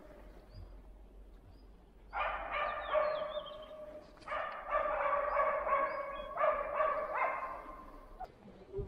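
West Siberian laikas barking at bay on moose, the sign that the dogs have found and are holding the animals. The barking comes in quick runs, starting about two seconds in, in three or four bouts, and dies away near the end.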